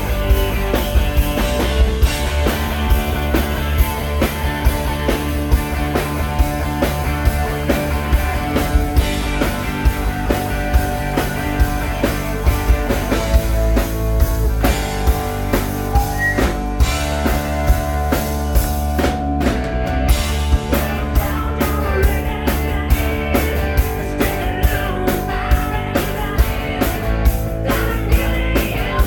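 Rock band playing: a drum kit keeps a steady beat under sustained guitar and bass lines.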